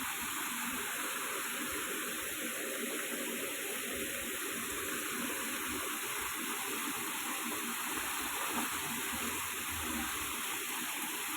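Waterfall rushing, a steady even noise of falling water.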